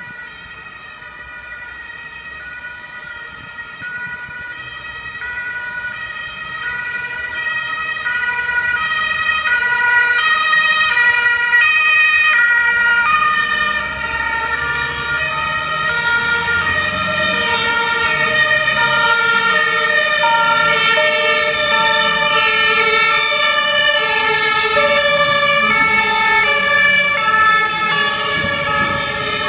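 Two-tone sirens of several fire engines and an ambulance on an emergency run, their alternating high and low notes overlapping out of step. They grow louder over the first ten seconds as the vehicles approach, then stay loud as they pass, with engine rumble underneath.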